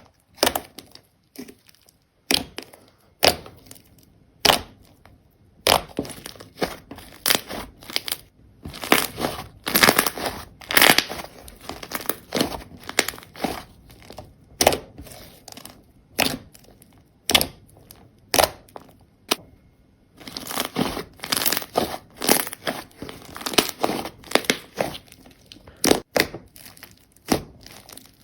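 Slime being squeezed and pressed by hand, giving irregular crackling and popping, in clusters with short gaps between them.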